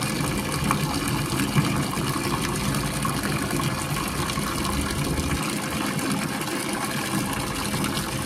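A steady stream of water pouring and splashing into a shallow pool of standing water.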